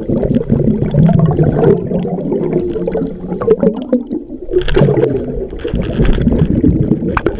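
Scuba divers' exhaled air bubbling and gurgling underwater, heard through a camera's waterproof housing, with a brief lull about four seconds in.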